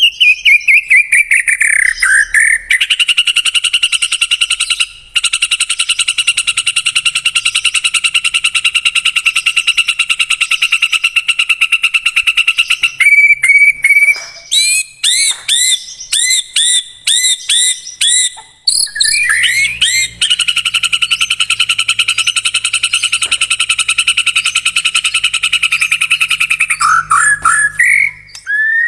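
White-rumped shama song played as a lure to set caged shamas singing. A falling whistled note opens, then long, fast, even rattling trills, broken near the middle by a run of short, arching whistled notes.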